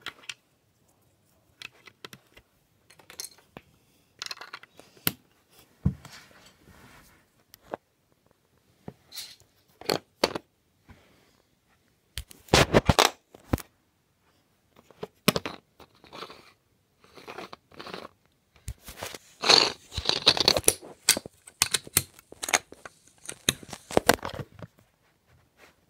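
Hard plastic Lego bricks clicking, knocking and scraping as they are handled on a baseplate. There are two louder stretches of rubbing and knocking, about halfway and again about three-quarters through, as the filming phone is picked up and moved against the bricks.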